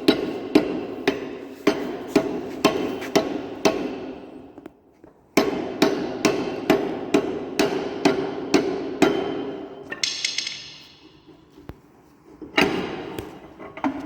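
Hammer blows on metal at about two a second, in two runs with a short pause between them, tapping a Land Rover Discovery rear half shaft into the axle so its splines engage. A short metallic scrape comes about ten seconds in, then a last few quick blows.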